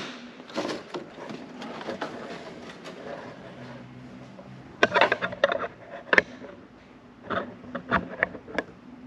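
Plastic front bumper cover of a 2016+ Camaro being pulled off, its retaining clips popping free. There are scattered clicks and knocks, with a cluster about five seconds in and a few more near the end.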